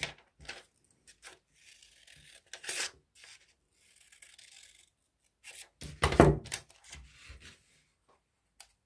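Scissors cutting through a sheet of colored paper, with the paper rustling as it is handled and turned, and a louder burst of paper handling about six seconds in.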